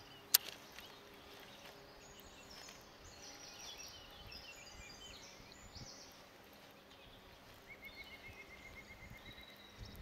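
Faint songbird calls: scattered high chirps, then a fast, evenly spaced trill of about eight notes a second lasting about two seconds near the end. A single sharp click comes just after the start.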